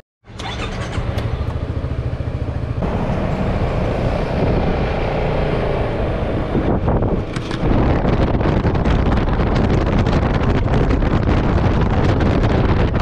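Yamaha maxi-scooter engine running, getting louder about three seconds in as it pulls away. After a cut about halfway through, the scooter is riding at road speed with wind buffeting the microphone.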